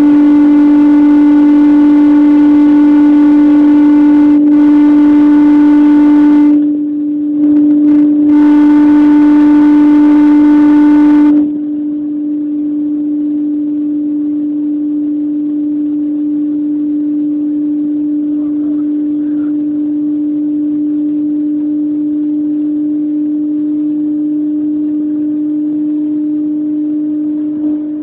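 Renault Espace 3.5 V6 engine heard from inside the cabin, holding a steady, unchanging drone at high speed near the car's top speed. About 11 seconds in the sound drops noticeably in loudness and loses its higher part, while the drone carries on at the same pitch.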